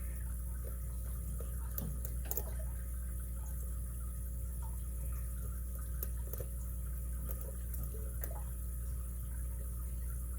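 Faint, scattered clicks and small scrapes of a lock pick and tensioner working the pins inside a brass padlock, over a steady low hum.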